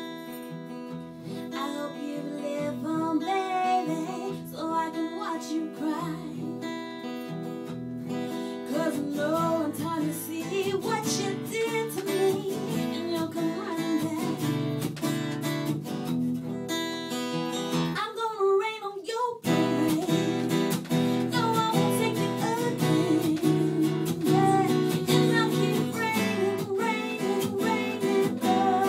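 A woman singing, accompanied by a strummed Taylor 814ce acoustic guitar. A little past the middle the strumming stops for about a second and a half, leaving her voice alone, then comes back in.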